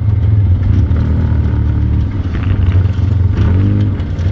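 ATV engine running, with its pitch rising and falling with the throttle about three and a half seconds in.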